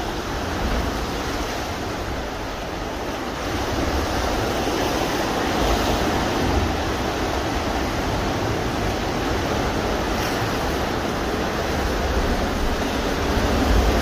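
Ocean surf surging and breaking against rocky cliffs, a steady rushing wash of water, with wind rumbling on the microphone.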